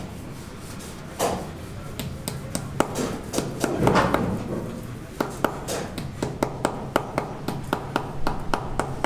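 Sharp taps and knocks of hand tools at work on a building site, coming about three a second in the second half, with a couple of short scraping swells earlier.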